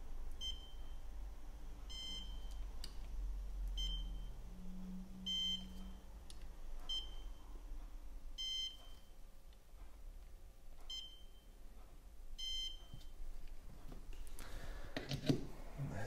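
Woodpecker iLED LED dental curing light beeping on its 1-second rapid-cure program: eight short, high electronic beeps in four pairs about a second and a half apart. Each pair marks one 1-second exposure starting and stopping, four cures in all.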